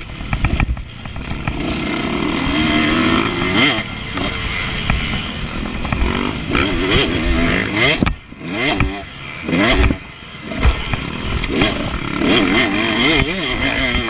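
Husqvarna TC125 two-stroke motocross engine revving up and down under hard riding on a dirt track. The pitch climbs and falls with each throttle opening and gear change, and the engine drops away sharply twice near the middle as the throttle is shut.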